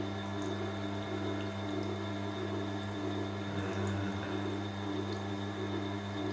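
Tormek wet sharpening machine running: a steady motor hum while the grindstone turns through the water trough, with light watery sounds, as the stone is wetted before sharpening.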